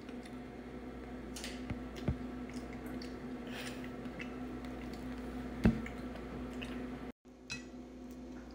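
Syrup squeezed from a plastic bottle onto a stack of pancakes, with two sharp clicks about two and six seconds in, over a steady low hum.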